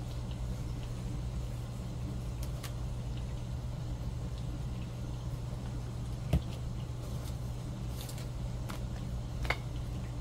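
A steady low hum, with a few faint taps and one sharper knock about six seconds in.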